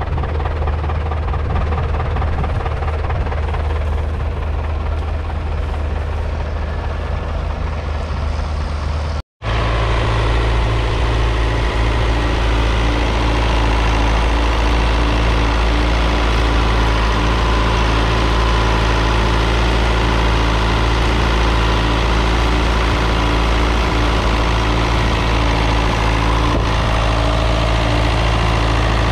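1981 David Brown 996's 3.6-litre four-cylinder diesel engine idling steadily. It breaks off for an instant about a third of the way through, then runs on with a stronger, deep, even note.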